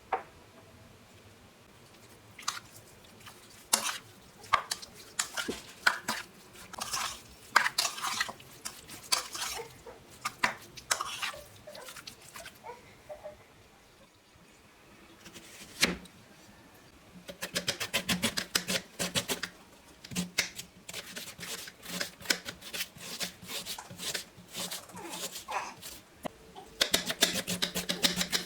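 Kitchen utensils clinking, knocking and scraping against cookware: scattered sharp knocks at first, then after a short pause a fast, busy run of clicks and scrapes.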